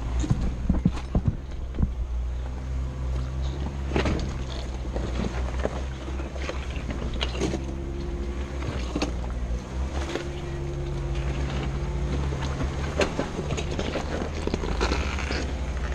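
Jeep Wrangler Rubicon engine running steadily at low revs while rock crawling, with scattered sharp knocks and clicks as the tyres and chassis work over the rock.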